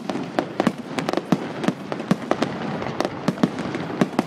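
Fireworks display: a rapid, uneven run of sharp bangs from bursting shells, about three or four a second, over a continuous crackling hiss.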